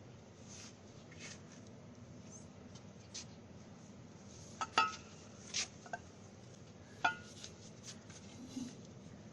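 Scattered light metallic clinks and taps over a low steady hum, with two sharper ringing clinks about five and seven seconds in.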